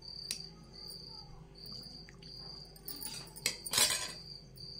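Insect chirping: a high trill repeated in even pulses, about one and a half a second. A short rustling noise about three and a half seconds in is the loudest sound, with a few faint clicks around it.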